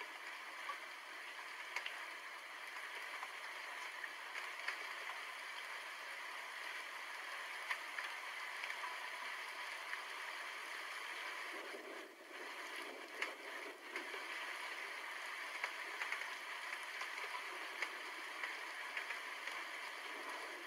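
Steady rain falling, an even hiss with scattered sharp ticks of drops, briefly easing about twelve seconds in.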